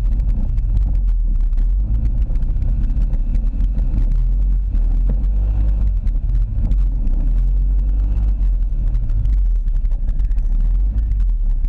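ATV engine running as the quad rides over mud and ruts, heard close up from the machine's own rack, with a constant low rumble and many small knocks and rattles.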